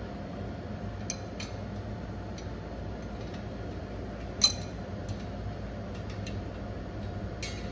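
Light metallic clinks and one sharp clank of hand tools on metal as a steel driveshaft is worked loose under a car, over a steady low hum.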